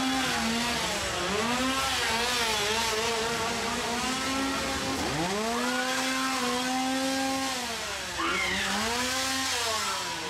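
A small engine revved hard and held, its pitch dropping and climbing back up again and again. It sinks deepest about five seconds in and again near the eight-second mark.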